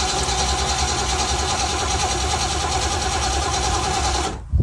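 Inboard V8 boat engine running steadily, then shut off abruptly near the end, with a brief thump as it stops.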